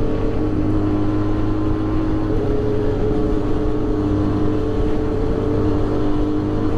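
Benelli 302R's parallel-twin engine running at a steady cruising speed, a constant drone that changes pitch slightly about two seconds in, under a heavy rumble of wind on the microphone.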